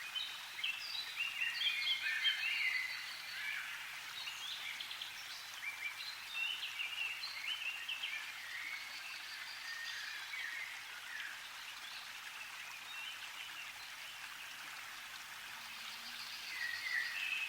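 Many small birds chirping and calling in quick, overlapping short notes over a steady hiss. The calls come thickest in the first few seconds, again in the middle, and once more near the end.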